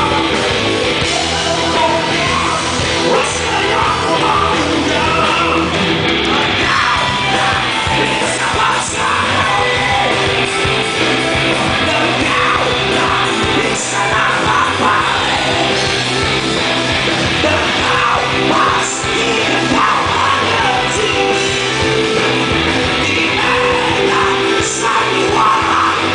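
Rock band playing live: electric guitar, bass guitar and drums under a singer's vocals, continuous and loud.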